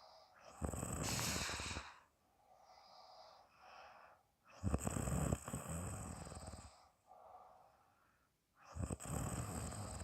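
A woman snoring in sleep: three loud rasping snores about four seconds apart, each followed by a softer breath blown out through the mouth.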